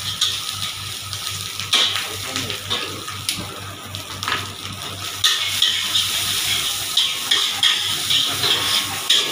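Rice frying in a wok over a gas burner with a steady hiss; a metal ladle knocks against the wok a few times, then from about five seconds in scrapes and tosses the rice in quick, repeated strokes.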